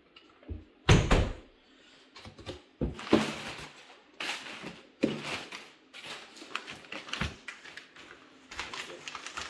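Cardboard box being opened and its packaging handled: irregular scrapes, rustling and knocks, with a loud thump about a second in.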